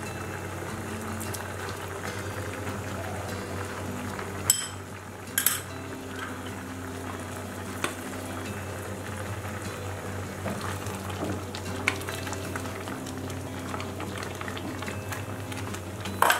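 Sugar syrup with khoa boiling in a pan, a steady bubbling, with a few sharp taps of a spoon against the pan, the loudest about four and a half seconds in.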